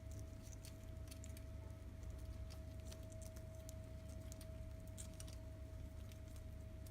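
Faint, scattered clicks and light rattles of a camera strap and its metal buckle being handled and threaded, over a steady low hum and a faint steady tone.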